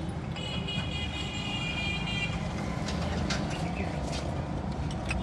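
A motor vehicle engine running with a steady low rumble, under scattered light metallic clicks. About half a second in, a high steady tone, like a horn or beep, sounds for nearly two seconds.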